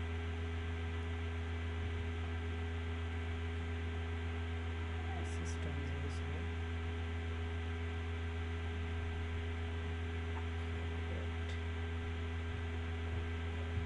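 Steady electrical mains hum on the recording, with a few faint clicks about five to six seconds in.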